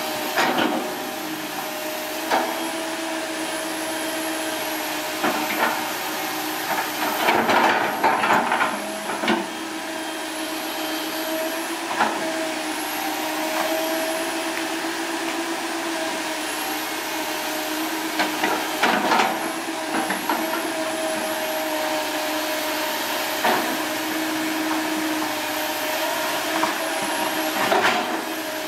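Komatsu PC160LC crawler excavator's diesel engine and hydraulics running with a steady hum and a thin high whine. Over it come irregular thuds and scrapes as the bucket drags and drops loose soil into a pipe trench, the busiest clusters coming about a third of the way in and again past the middle.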